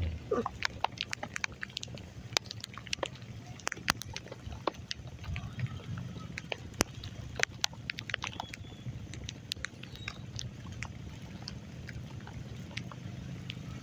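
Heavy rain, with single drops tapping sharply and irregularly close to the microphone over a steady low rumble.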